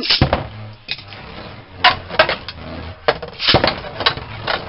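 Two Beyblade Burst spinning tops are launched into a plastic stadium with a sharp rip at the start. They then clack against each other and the stadium walls in sharp clicks, several in quick clusters, over a low steady whir of the spinning tops.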